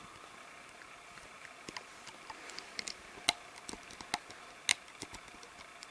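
Small irregular clicks and taps of a hook working rubber bands over the pegs of a plastic Rainbow Loom, with two sharper clicks in the middle.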